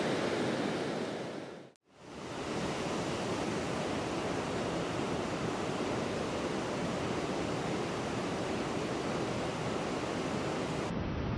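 Steady rushing of water pouring through the gates of a river dam. It fades out to silence for a moment just before two seconds in, then returns unchanged.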